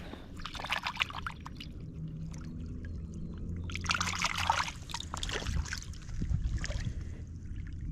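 A hand swishing two pottery sherds in shallow river water to rinse off mud: splashing in a few bursts, loudest about four seconds in, over a low steady rumble.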